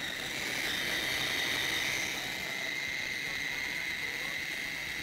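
Electric food processor running steadily, a high motor whine over a grinding hiss, as it chops cauliflower leaves.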